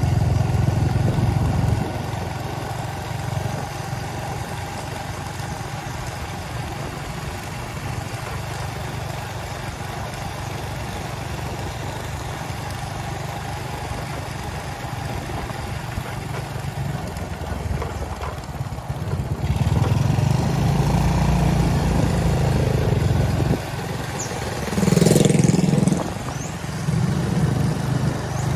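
Motor vehicle engine running steadily, growing louder in several stretches: briefly at the start, then again about two-thirds of the way through and near the end.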